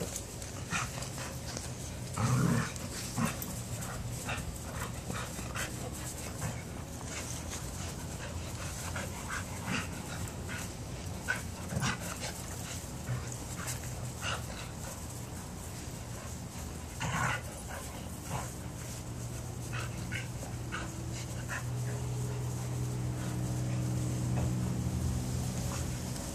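Two dogs play-fighting: scuffling, panting and short whines and yips, with louder outbursts about two seconds in and again past the middle. A low steady hum joins near the end.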